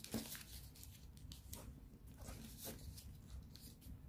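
Faint crisp rustling and creasing of a square of origami paper as its corners are folded to the centre and pressed flat with the fingers, a string of short rubs about every half second.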